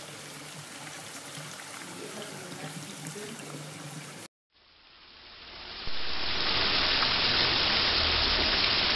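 Water trickling steadily over a stone-sphere ball fountain. After a short break it is followed by a much louder, steady rush and splash of water spilling over a polished granite ball fountain and its granite block, which fades in and grows louder about six seconds in.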